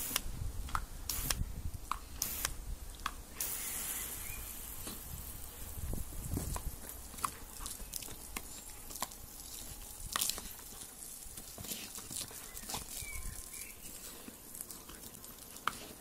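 A jet of water spraying and pattering on grass and on a German Shepherd as it lunges and snaps at the spray, with scattered sharp clicks and a steady hiss from a little after three seconds in.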